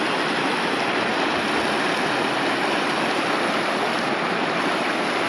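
A rocky mountain stream rushing steadily over stones.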